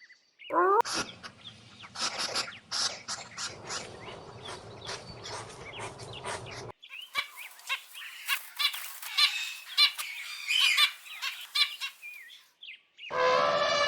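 Domestic fowl calling, a dense run of short loud calls over a low rumble, then an abrupt cut to smaller birds chirping. Near the end a different, drawn-out animal call begins.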